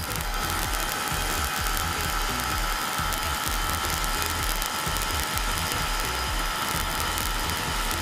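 Kawasaki HD3 two-stroke motorcycle engine running steadily while ridden on a test ride, with a buzzy, rattly mechanical sound; the owner afterwards reports the engine has no problems. Wind buffets the microphone in irregular low gusts.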